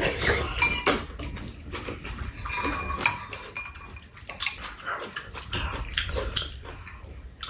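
Metal spoons clinking against ceramic soup bowls, several sharp clinks with a short ring, mixed with the slurping and chewing of two people eating kimchi sujebi.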